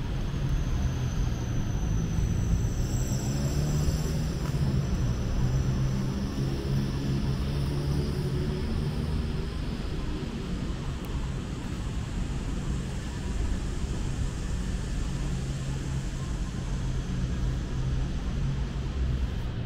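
Engine noise in city street ambience: a steady low engine hum, with a pitch that glides downward from about four to ten seconds in.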